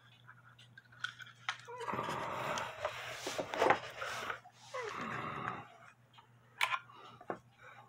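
Handling noise as a small wooden cuckoo clock with its chain and weight hanging below is picked up and held: a few sharp clicks and two stretches of rough rustling, about two and a half seconds and one second long.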